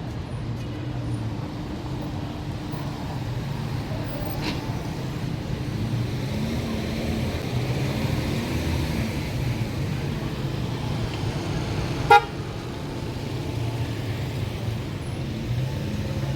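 Street traffic with engines running steadily, and one short vehicle horn toot about twelve seconds in.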